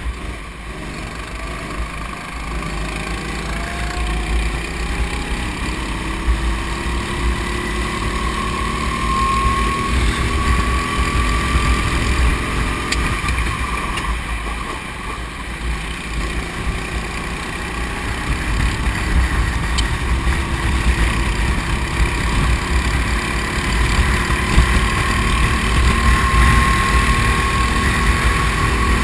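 Go-kart engine heard onboard, its pitch climbing steadily as the kart accelerates, dropping briefly about halfway through as it eases off, then climbing again.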